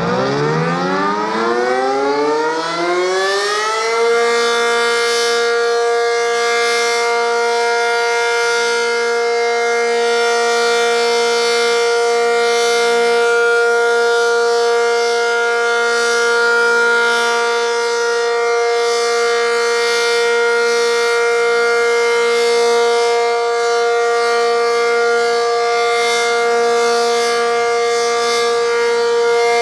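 ACA Cyclone 125 outdoor warning siren winding up, its pitch rising for about four seconds, then holding one steady tone. This is the steady Alert signal.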